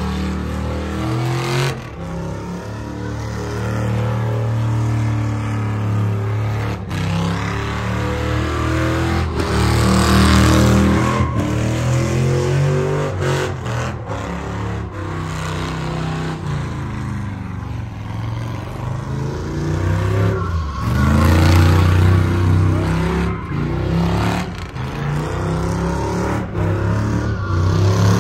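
Pickup truck engine revving hard, rising and falling over and over, with tyres spinning on pavement in a burnout and drift.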